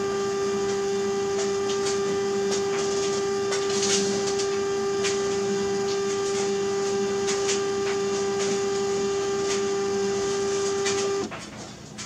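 Stepper motor turning a roller inductor's coil and driving its contact to the halfway position, with a steady, even whine at one pitch. It stops abruptly about 11 seconds in as the inductor reaches its set position.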